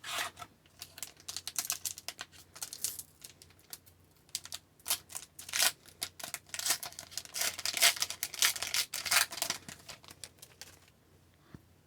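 Hockey trading cards being handled and flipped through by hand: a run of irregular quick clicks and swishes of card stock against card stock, stopping near the end.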